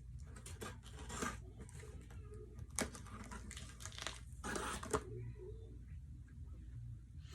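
Packaging being handled during an unboxing: rustling and crinkling in several bursts, with a sharp click about three seconds in.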